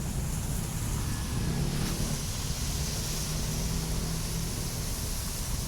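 Heavy rain pouring down as a steady hiss, with a low, unbroken rumble underneath.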